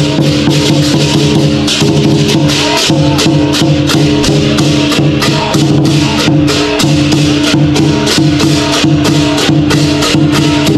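Lion dance percussion troupe playing drums and cymbals: a fast, continuous beat of strikes over steady ringing tones.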